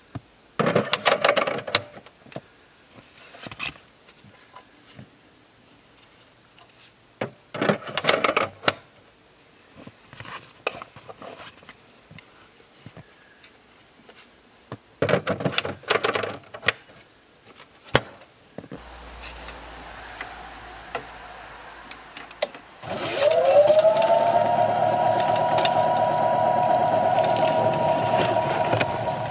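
Greenworks 80V two-stage electric snow thrower starting up: after three short bursts of handling noise and a faint low hum, its electric motor whines up quickly in pitch about three-quarters of the way in and settles into a steady running whine as it begins throwing snow.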